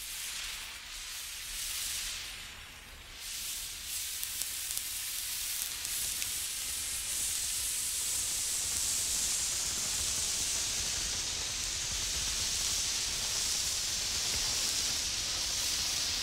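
Burning emergency road flare giving a steady fizzing hiss, swung from side to side. The hiss swells and dips over the first few seconds, then holds steadier and stronger from about six seconds in.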